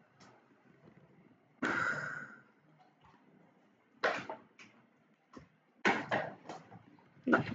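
Several short clicks and knocks from a computer mouse and desk being worked, with a longer rustling noise about two seconds in.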